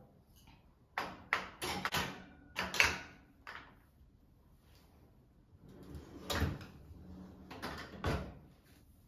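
Glass spice jars with metal lids clinking and knocking as they are set into a pull-out wire drawer basket. After a pause, the metal cabinet drawer slides shut with a couple of solid knocks.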